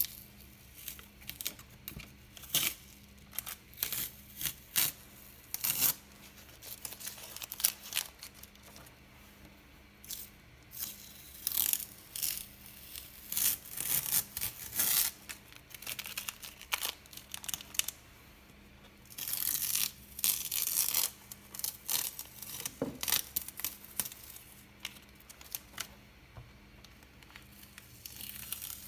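Masking tape being peeled off the edges of a sheet of watercolour paper, in a series of short, irregular ripping tears, with a longer run of peeling about two-thirds of the way through.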